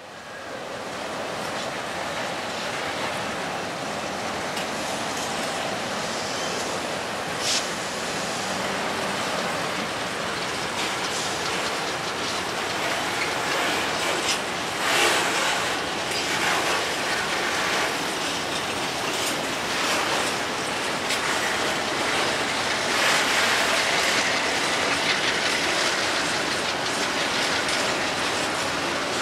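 Freight train wagons rolling through a yard, their wheels clattering over the rail joints in a steady rumble, with squeals from the wheels now and then, strongest about halfway through and again later on.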